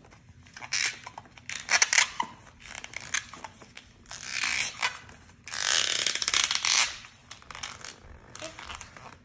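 Latex modelling balloon being twisted and rubbed by hand, giving rasping, creaking rubs in several bursts, the longest and loudest a little past halfway.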